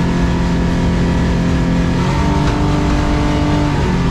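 A boat's main engine running hard at full throttle, high in its revs against the rev limiter, which is taken as a sign that the boat needs a different propeller. Its pitch steps to a new note about two seconds in and shifts again near the end.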